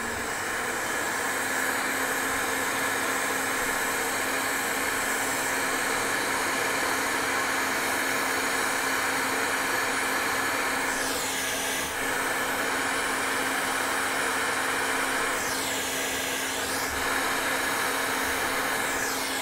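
Hot air rework station blowing steadily as it heats a cluster of electrolytic capacitors on a graphics card to desolder them. The hiss holds even, with a faint sweep down and back up in its pitch twice, about halfway through and again near the three-quarter mark.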